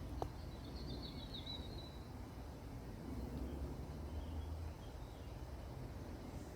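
A songbird gives a short twittering call over the first two seconds, against a steady low outdoor rumble. A brief sharp click comes just at the start.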